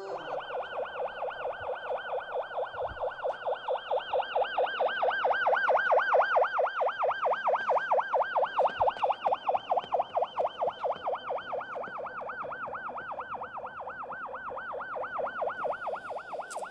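Police car siren in a fast warbling yelp, its pitch sweeping up and down several times a second. It grows louder toward the middle, then fades somewhat.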